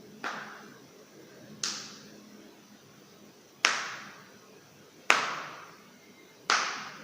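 Five sharp joint cracks, one every 1.5 to 2 seconds, each trailing off briefly.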